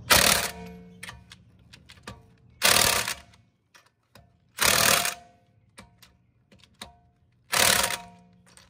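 Impact wrench running lug nuts onto a car wheel in four short rattling bursts a couple of seconds apart, one nut after another in a star pattern. Small clicks come between the bursts as the socket is moved from nut to nut.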